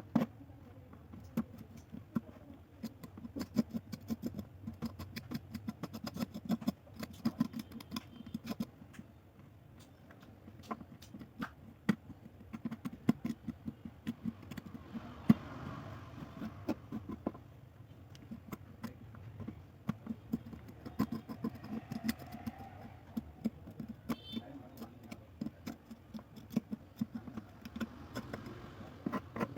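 Sharp, irregular metallic clicks and taps, several a second, with soft scraping in places, over a low hum: an old metal key being handled and scrubbed clean.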